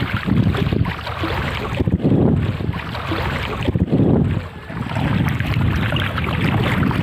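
Floodwater sloshing around the legs of people wading through it, coming in uneven surges, mixed with wind rumbling on the phone's microphone.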